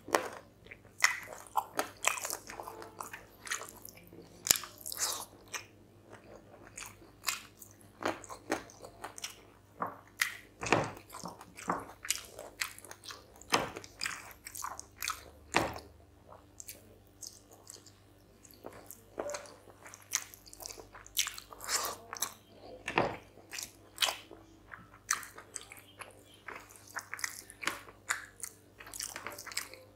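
Close-miked chewing and wet mouth smacks and clicks of someone eating rice and chicken curry by hand, several a second, irregular, with the fingers mixing rice and curry on the plate.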